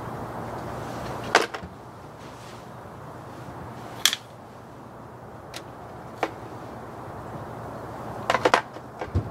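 Metal sockets and small hardware clinking as a socket set is rummaged through: a handful of sharp separate clinks, with a quick cluster near the end.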